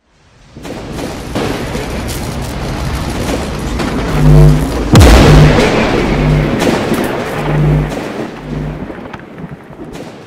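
An edited outro sound effect with music: a swelling rumble carrying deep, pulsing bass notes, with one heavy boom about five seconds in, then fading out near the end.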